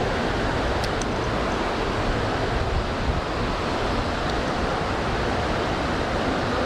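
Steady, even rush of water pouring over a river spillway.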